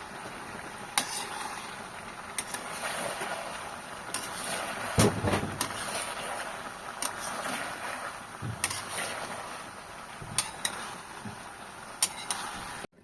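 Knife cutting a bottle gourd: scattered sharp knocks, irregular and a second or two apart, over a steady hiss.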